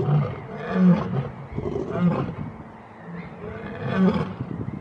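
Lioness calling in a series of short roars, one about every second, each a brief pitched call.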